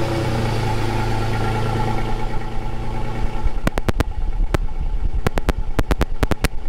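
2022 Toyota Tacoma's engine idling through its stock exhaust just after a start, heard close to the tailpipe. The low exhaust note eases about halfway through, and then a run of sharp clicks comes.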